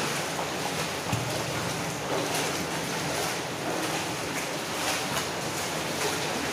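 Footsteps on the wet floor of a corrugated steel culvert, landing roughly every half second to second, over a steady rushing hiss that fills the tunnel.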